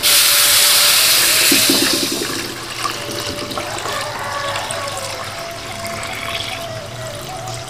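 A rush of liquid pouring and splashing into a cooking pot, loud for about two seconds, then settling to a quieter steady simmering noise.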